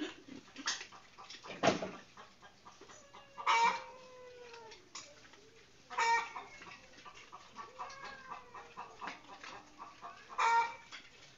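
Chickens giving short squawking calls, about four of them a few seconds apart, with a single sharp knock about two seconds in.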